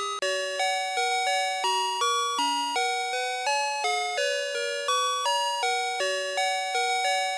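VTech Alphabert's Sonic Phonix electronic toy playing a song: a two-part tune of clean, bell-like synthesized notes, about two to three a second, each struck and fading quickly.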